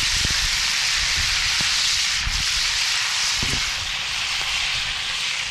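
Bacon-wrapped grouse frying in a cast iron skillet over a campfire: a steady, loud sizzle of spitting fat, with a few light knocks of tongs against the pan and a low wind rumble on the microphone.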